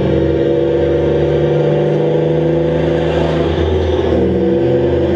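Armored tornado-intercept vehicle driving at speed: a steady engine drone.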